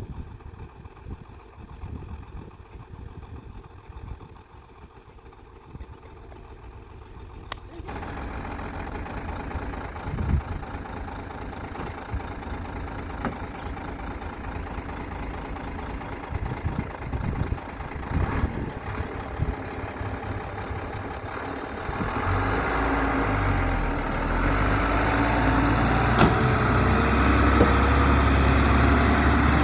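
Diesel engine of a Daewoo 170W-3 excavator running. It is quiet at first, turns suddenly louder about eight seconds in, and grows louder again about 22 seconds in, settling into a steady deep hum.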